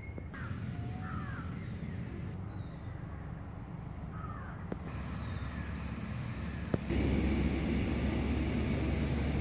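Crows cawing several times over a steady low outdoor rumble. The rumble gets louder about seven seconds in.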